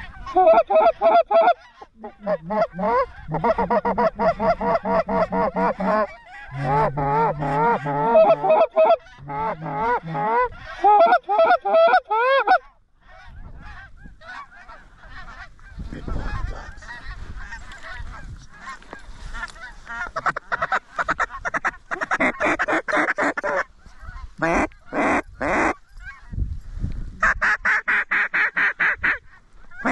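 Goose honking in quick runs: wavering, rising and falling honks in the first half, a short lull, then fast even series of clucking honks, about four to five a second, near the end. It is goose calling worked at a single goose in close, from the hunters' honker and lesser calls, the geese, or both.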